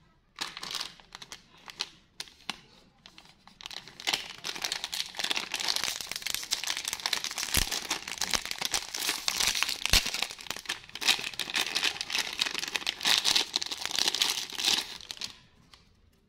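Plastic candy wrapper of a marshmallow stick being crinkled and torn open by hand: a dense, continuous crackling with a short lull early on, dying away about a second before the end.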